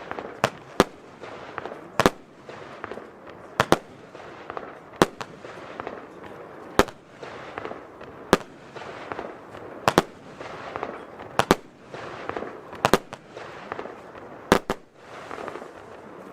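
Weco Celtic Nights F2 firework battery firing its shots: sharp bangs about every one and a half seconds, some of them doubled, with crackling between. The bangs stop shortly before the end.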